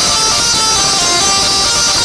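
Basuri telolet bus horn playing a quick tune, its held notes stepping up and down one after another.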